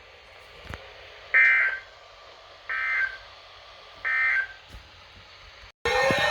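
Emergency Alert System end-of-message signal: three short bursts of warbling digital data tones, evenly spaced about a second apart, closing out a tornado warning broadcast. Just before the end, louder, busier sound cuts in abruptly.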